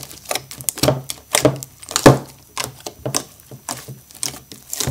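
Hands kneading and squeezing slime in bowls: an irregular run of short wet squelches and clicks, several a second.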